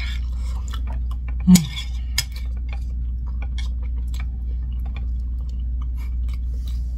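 Eating sounds: chewing and thin metal chopsticks clicking against a ceramic plate, many small clicks over a steady low hum, with one brief louder sound about a second and a half in.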